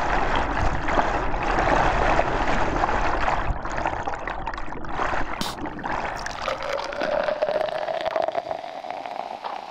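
Whitewater rushing and churning close to the microphone of a kayaker's camera. A steady tone fades in during the last few seconds as the water noise eases.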